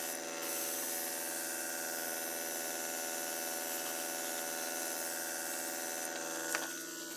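Airbrush compressor running steadily, a motor hum under a continuous hiss of air as the airbrush mists thinned black paint. A single sharp click about six and a half seconds in.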